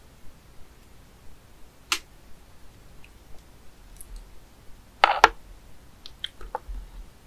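Handling of live edible snails: hard shells clicking and knocking on a plate. There is a single sharp click about two seconds in, a louder short clatter about five seconds in, and a few small ticks after it.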